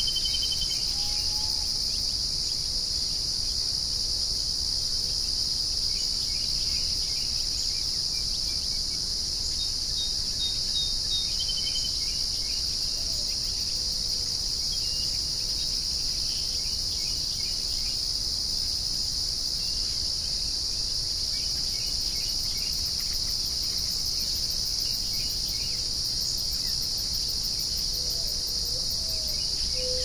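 A steady, high-pitched dawn chorus of insects such as crickets fills the air without a break, with a few faint bird chirps scattered over it.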